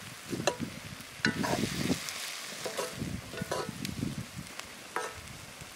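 Chopped greens and tomato sizzling in a hot wok as a metal ladle stirs them, the ladle scraping and clinking against the pan several times.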